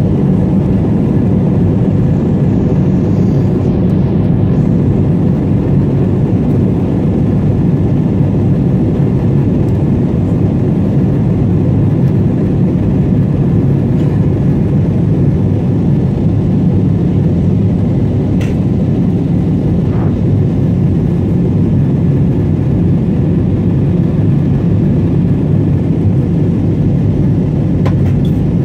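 Steady drone of jet-airliner cabin noise heard from a window seat: engine and airflow rumble, mostly low, with faint steady tones over it, while the aircraft descends toward landing.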